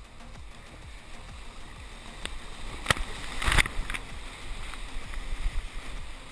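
Kayak running whitewater rapids: steady rushing water with paddle strokes and splashes breaking over the bow, the loudest splashes a little before and around three and a half seconds in.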